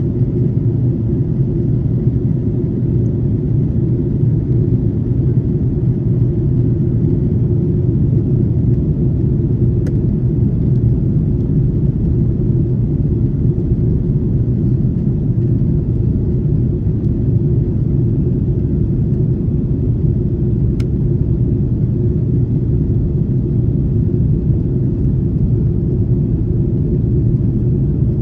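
Steady low rumble of airflow and engines inside the cabin of an SAS Airbus A330-300, whose engines are Rolls-Royce Trent 700s.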